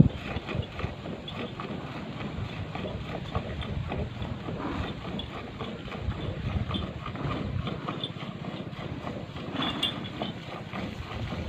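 Cow being milked by hand: rhythmic squirts of milk streaming into a steel pail already partly full of frothy milk.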